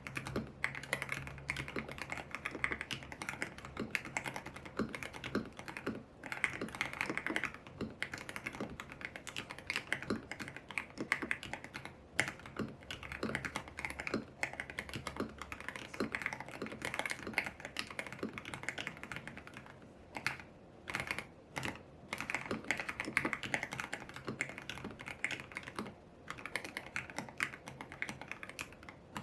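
Typing on a YUNZII X75 PRO mechanical keyboard with lubed Kaith Jellyfish switches, milky keycaps and a tape mod: a fast, steady run of keystrokes, thinning to a few single strokes about twenty seconds in.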